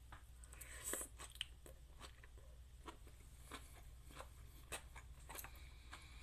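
A person biting into a forkful of vermicelli noodle bowl with bean sprouts, lettuce, cucumber and peanuts, then chewing it with faint, irregular crunches. The loudest crunch comes about a second in.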